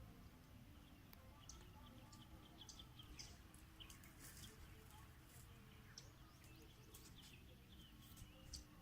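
Faint bird chirps, many short scattered calls, over a steady low rumble.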